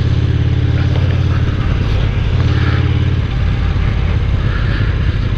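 Yamaha Star Bolt's air-cooled V-twin engine running under way, a steady low beat with wind and road rush over it. Its note shifts about a second and a half in and again a little past three seconds.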